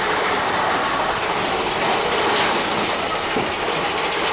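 Mine-train roller coaster running along its track at speed: a steady, loud rattle and rush of the cars and wheels.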